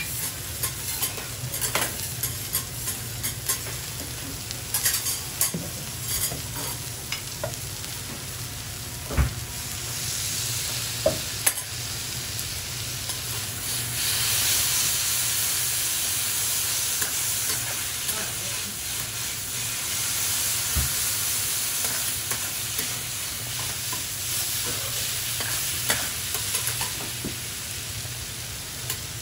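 Food sizzling on a steel teppan griddle, with metal spatulas clicking and scraping on the plate. The sizzle grows louder about halfway through, as shredded cabbage and bean sprouts are tossed and fried with two spatulas.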